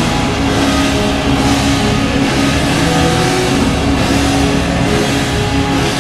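Loud rock music: the arena goal song that plays after the goal horn.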